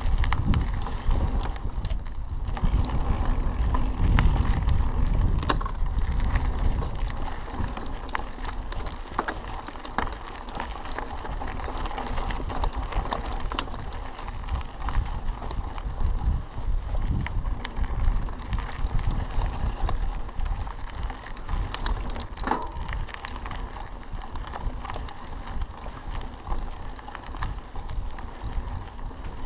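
Mountain bike riding over a dry dirt and stone trail: the tyres roll over the ground and the bike rattles with scattered clicks over bumps. Wind rumbles on the microphone, strongest in the first few seconds.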